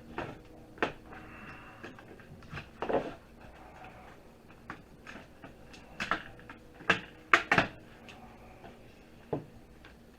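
Scattered clicks, snaps and knocks of an oven or microwave control panel being pried and pulled apart by hand, with the loudest cluster about seven and a half seconds in.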